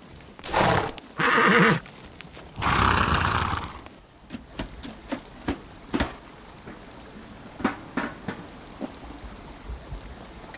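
A horse whinnying in three loud bursts over the first four seconds. Then comes a string of irregular hoof thuds and knocks as it moves off over leaf-littered ground.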